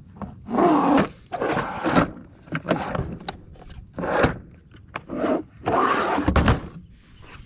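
Tool tray being slid back into a Craftsman VersaStack plastic mechanics tool case: four scraping, rubbing pushes broken by sharp clicks and knocks of plastic and tools.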